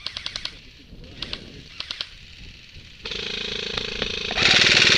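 Airsoft electric guns firing on full auto: a few short bursts of rapid clicks, then from about three seconds in a long, much louder burst that is loudest near the end.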